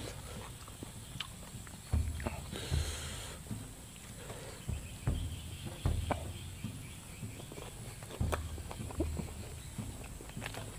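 A person eating fried bird close to the microphone: irregular chewing, crunching and small mouth clicks, with a few dull bumps and a brief crisp crunch about three seconds in.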